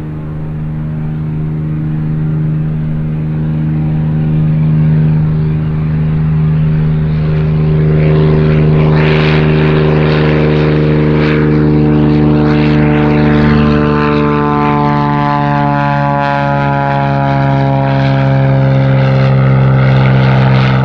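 Single-engine light propeller airplane at full takeoff power. Its engine drone grows louder as it lifts off and climbs past, then its pitch falls as it moves away.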